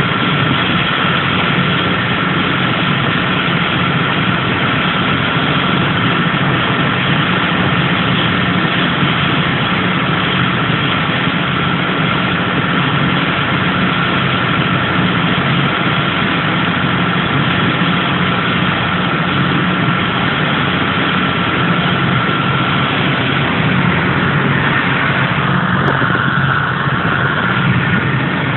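Boat engine running steadily underway, a constant loud drone with a thin steady whine over it.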